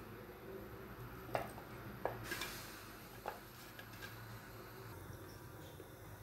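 Quiet kitchen sounds from cooking at a pot of simmering soup: a faint steady low hum with a few soft clicks and taps, about one and a half, two and three seconds in.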